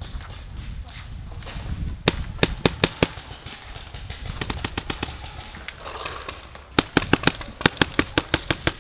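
Paintball markers firing in rapid strings: about half a dozen quick shots about two seconds in, then a longer string of around a dozen shots near the end.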